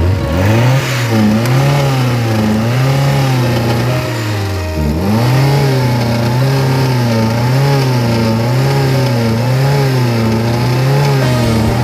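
Car engine revved over and over, its speed rising and falling about once a second, with one deeper drop in revs a little before halfway.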